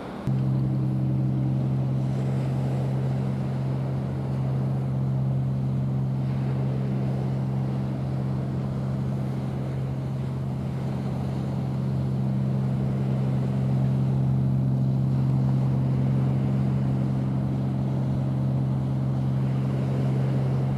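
A steady, unchanging engine hum that sets in abruptly just after the start and runs on without rising or falling.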